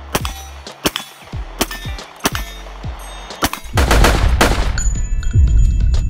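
Intro music with a deep bass pulse, cut by about five sharp gunshots spaced under a second apart. About four seconds in, a swell of noise leads into louder, bass-heavy music.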